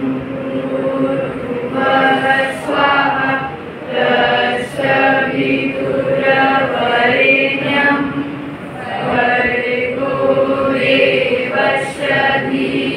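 A group of school children chanting a prayer in unison, voices carrying long held notes with short breaks between lines.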